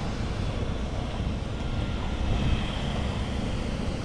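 Steady wind rumble on the microphone over open water, with water sloshing beside a small boat.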